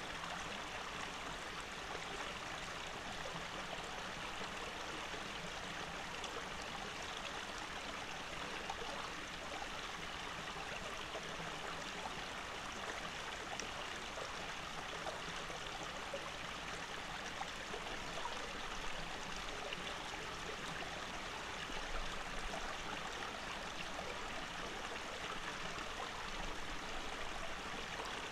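Shallow stream flowing over rocks: a steady, even sound of running water that does not change.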